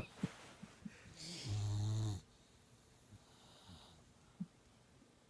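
Boxer puppy snoring in its sleep: one loud, buzzing snore about a second in, lasting about a second, then a fainter breath.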